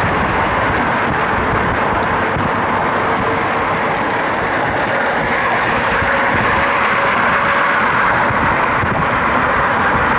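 Steady road and wind noise from a moving car, a constant even noise with no breaks.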